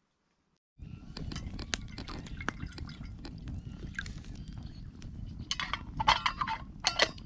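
Water poured from a plastic bottle into a metal kettle set on a crackling campfire, starting about a second in. Near the end come two louder clatters as the kettle's lid is handled and put on.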